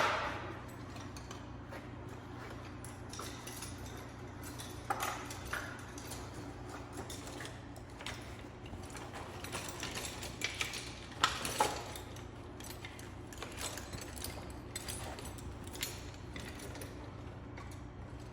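Hand tools clicking and clinking against engine parts in scattered, irregular strokes, with a sharp knock right at the start and a cluster of louder clinks about eleven seconds in.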